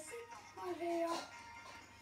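Background music: a German children's song, its melody going in short held notes.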